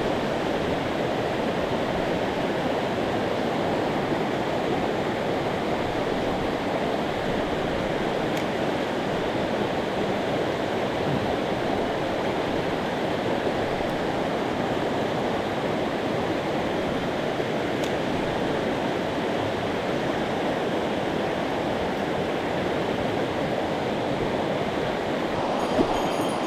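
Mountain stream water rushing over rocks: a steady, even rush.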